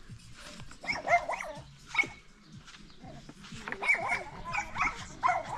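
A dog barking in short bursts: a few barks about a second in and one near two seconds, then a quicker run of barks near the end.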